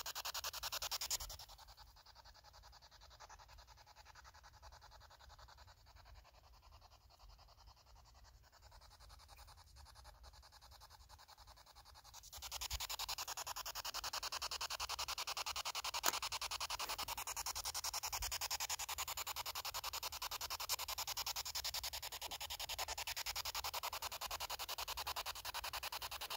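Steady rough hiss of noise. It drops much quieter about a second in and comes back to its earlier level about twelve seconds in.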